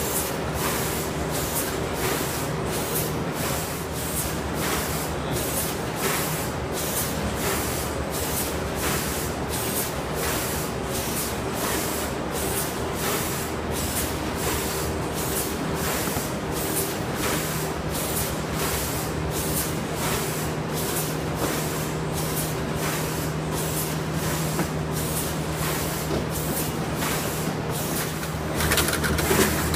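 Automated packing line with a multihead weigher and bagging machine running: a steady mechanical hum under a fast, even train of short hissing clicks as the machine cycles.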